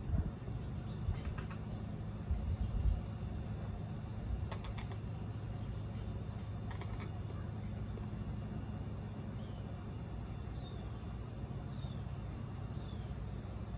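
Steady low hum of outdoor background, with scattered faint clicks of an Amazon parrot's beak working at dried fruit in a cork bowl. A few short, high bird chirps come near the end.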